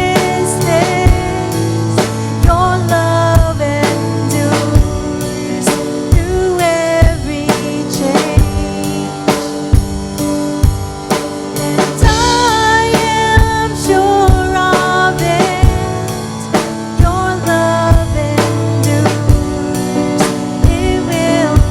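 Worship song performed by a band: a steady drum-kit beat with kick drum under held chords, and a sung melody over it.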